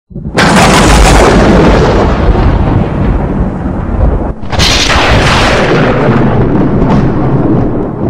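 Two loud cinematic boom hits from an animated logo intro, one just after the start and one about four and a half seconds in. Each starts suddenly and fades slowly.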